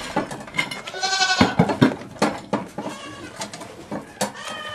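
A goat bleating: one wavering bleat about a second in, and a second one starting near the end. In between come scattered sharp knocks and clatter.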